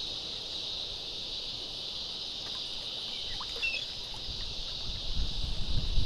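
Steady high-pitched chorus of insects, crickets trilling without a break. Low rumbling and bumps come in during the last second.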